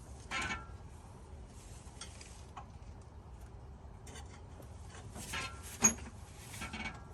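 Metal tool clinks and scrapes as a wrench on extension bars is fitted and worked, trying to turn the engine over by hand. A single sharp metallic click about six seconds in is the loudest sound.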